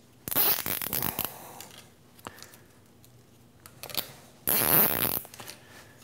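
Nylon zip ties being pulled tight, their ratchet teeth clicking past the latch: a rattling run of clicks just after the start, then a quicker, louder zip about four and a half seconds in.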